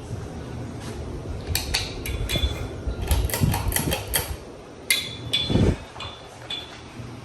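Ceiling fan motor humming steadily on a 52-inch Halsey Builder fan with a bad capacitor, over a run of sharp metallic clicks and knocks with a low thump about five and a half seconds in.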